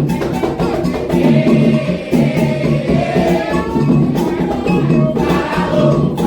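Candomblé ritual music: atabaque hand drums and a struck percussion part keep a dense, steady rhythm under group singing.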